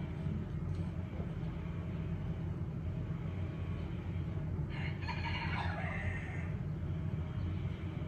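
A rooster crows once, about five seconds in: one call of nearly two seconds that drops in pitch at the end, over a steady low rumble.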